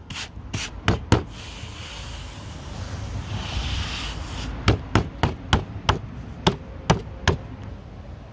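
Hand patting and rubbing carpet down onto a wooden board freshly glued with contact cement. There are a few pats in the first second or so, a stretch of rubbing, then a quick run of about nine slaps.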